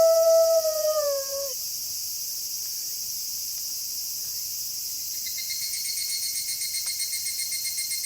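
A wolf howling on one steady pitch, bending down and ending about a second and a half in, over a constant high chorus of night insects. From about five seconds a pulsing insect trill joins.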